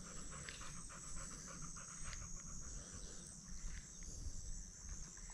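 A dog panting softly and rhythmically over a steady high-pitched drone of insects.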